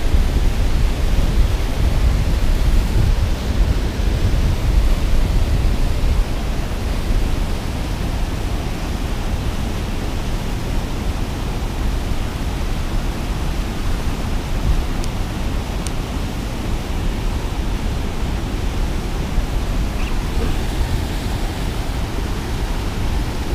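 Steady rush of turbulent, foaming water churning below a concrete spillway, with wind rumbling on the microphone. It is louder for the first several seconds, then settles to an even roar.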